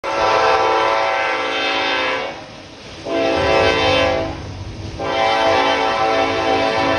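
Norfolk Southern diesel locomotive's loud, grinding air horn blowing three blasts: a long one, a shorter one about three seconds in, and a long one held from about five seconds in. Low train rumble runs beneath the horn.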